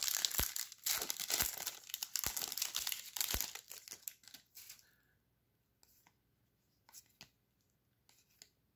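Crackling plastic-foil trading card pack wrapper being torn open and crinkled for about five seconds, with a few faint ticks later on.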